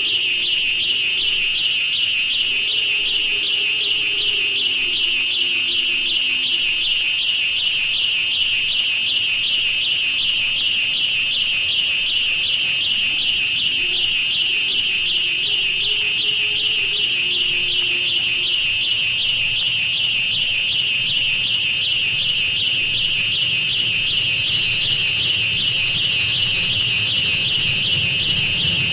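Experimental noise piece made from processed railroad sounds: a steady, piercing high-pitched drone with a fast, even pulsing, alarm-like, over faint low tones that move in steps. A low rumble builds in about three-quarters of the way through.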